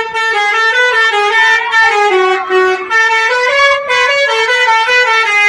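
Basuri musical truck horn playing a quick melody, one loud blaring note after another, stopping abruptly near the end.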